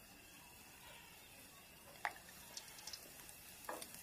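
Khoya dough balls for gulab jamun frying in hot oil, giving a faint sizzle. There is a sharp click about halfway through and another short sound near the end.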